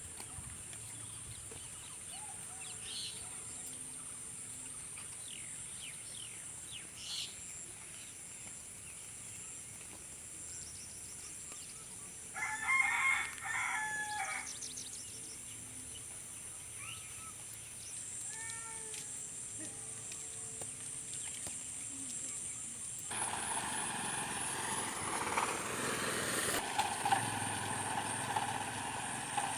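A rooster crows once, a loud call of about a second and a half near the middle, against faint chirps of small birds. About two-thirds of the way through, a louder, rougher steady noise sets in and stays.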